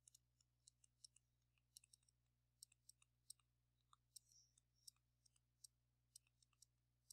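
Near silence: faint room tone with a low hum and small soft clicks about every three-quarters of a second.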